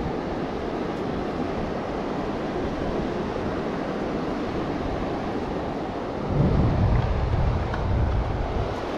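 Steady beach surf and wind noise on the microphone. About six seconds in, a louder low rumble of wind buffeting the microphone lasts a couple of seconds.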